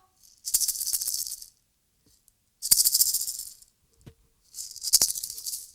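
Maracas shaken in three bursts of about a second each, a dry rattle of beads.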